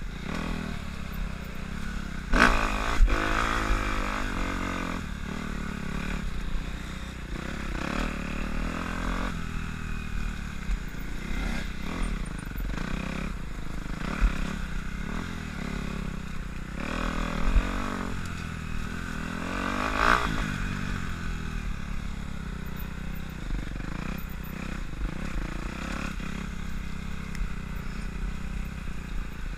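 Dirt bike engine running under way on a trail, its revs rising and falling with the throttle, with two sharper climbs in revs, about two seconds in and again about twenty seconds in.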